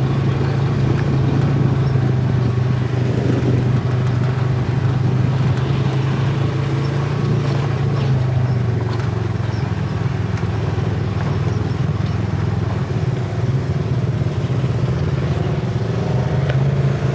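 Side-by-side UTV engine running steadily while riding. Its drone drops in pitch about halfway through and rises again near the end.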